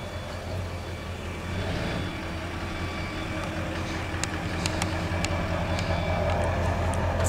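Chevrolet LB7 Duramax 6.6-litre V8 turbodiesel idling steadily, with a few light clicks around the middle.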